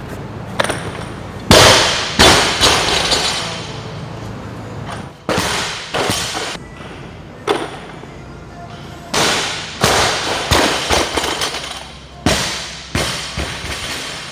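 Loaded barbells with bumper plates dropped and set down on lifting platforms during snatches: a series of sharp thuds and clanks with short ringing tails, the loudest about a second and a half in.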